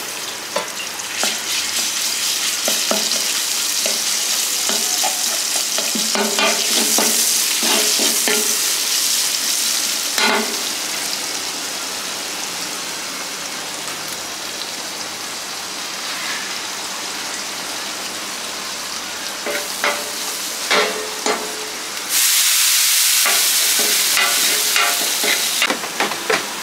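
Meat sizzling as it fries in a hot pan, stirred with a utensil that scrapes and taps against the pan. The sizzle swells louder for a few seconds near the end.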